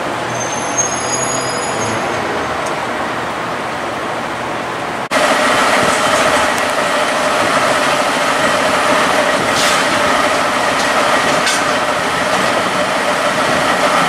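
Street traffic with vehicles running. After a cut about five seconds in, a parked fire engine's engine runs steadily and louder, with a steady hum.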